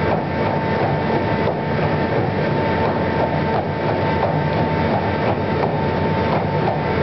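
Horse treadmill running: a steady machine noise with a constant whine, and faint knocks of the horse's hooves on the moving belt.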